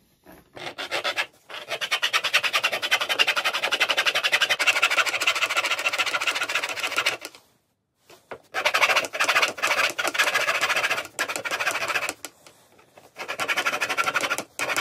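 A thin hand saw blade cutting through an RC plane's elevator with rapid back-and-forth strokes. The strokes come in spells, broken by short pauses about seven and twelve seconds in.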